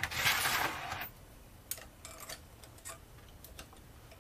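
A rustling scrape about a second long as a flat metal spanner is picked up off the tabletop. Then a few light metallic clicks and taps as a hex key and the spanner are fitted to the arbor screw of a cut-off tool to take it apart.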